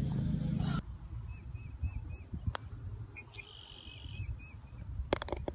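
Putter striking a golf ball with a single sharp click about two and a half seconds in, over wind rumble on the phone microphone and faint high chirps repeating in the background. A loud low rumble at the start cuts off abruptly under a second in, and a few clicks come near the end.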